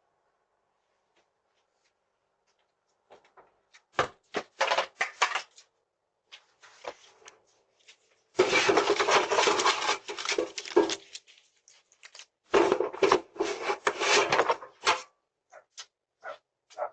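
Silence, then a quick run of sharp knocks, followed by two longer stretches of clattering, rustling noise, heard through a doorbell camera's microphone.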